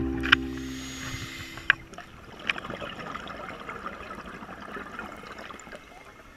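Underwater sound heard through a camera's waterproof housing: a faint watery hiss with a few sharp clicks. Background music fades out over the first second or two.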